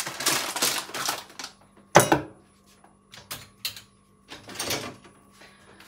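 Kitchen items handled off-camera: rustling, then one sharp clack about two seconds in, followed by scattered light clicks and rustles as seasoning containers are put down and picked up.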